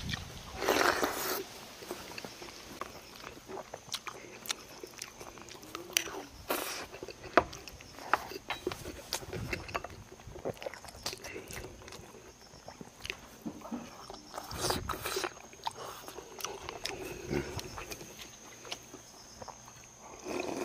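Close-up mouth sounds of a man eating: chewing, biting and slurping food, with small scattered clicks and taps and a few louder bursts of eating noise.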